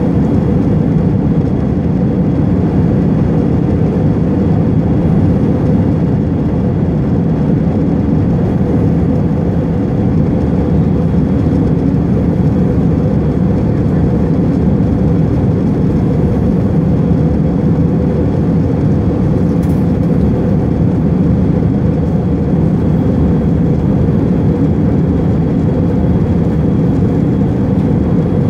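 Jet airliner cabin noise in flight: the steady, even rush of engines and airflow heard from a window seat, strongest in the low range, with a faint steady high whine.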